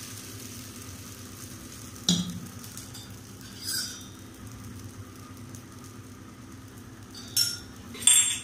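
Corn dosa batter sizzling faintly on a hot dosa pan, with four sharp clinks of utensils against steel vessels as oil is spooned around the dosa, the loudest clink near the end.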